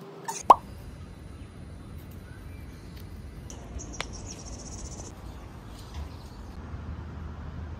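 A sharp click about half a second in, then steady outdoor morning ambience: a low hum of distant traffic, with high-pitched chirping for a second or two in the middle.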